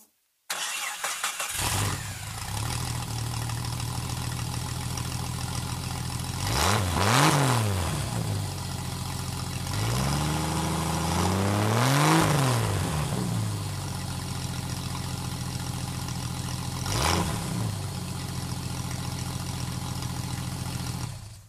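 1992 Jeep Cherokee XJ's 4.0-litre straight-six running with no muffler at all. It starts about half a second in and idles, then is revved three times: two longer revs near the middle and a short blip later. It stops just before the end.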